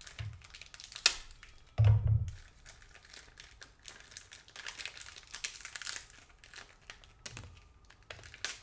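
Clear plastic packaging crinkling and rustling in the hands as it is cut with a knife and pulled off a phone back housing. A sharp click about a second in and a heavy thump about two seconds in.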